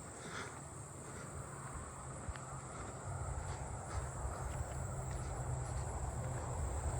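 Steady high-pitched insect chorus of crickets and katydids, with the low rumble of an approaching car growing louder through the second half.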